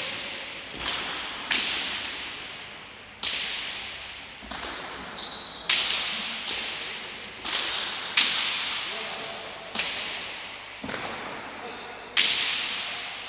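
Hand pelota rally in an enclosed fronton: the hard leather-covered ball cracks off the players' bare hands, the front wall and the floor, about a dozen sharp strikes at uneven gaps of roughly one to two seconds. Each strike rings out in a long echo through the hall.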